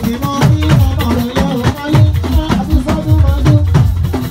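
Live Yoruba band music at a fast, even rhythm: drums, with low drum notes that bend in pitch, and shakers over them.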